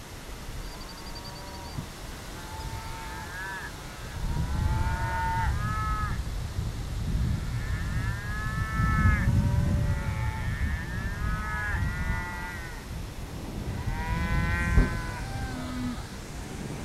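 Herd of cows and calves mooing and calling for feeding time, many pitched calls overlapping one after another. A low rumble runs underneath from about four seconds in, and there is a single sharp knock near the end.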